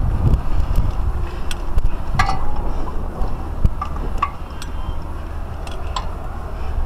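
Steady low rumble of wind on the microphone, with scattered short metallic clinks from the climber's carabiners and harness hardware.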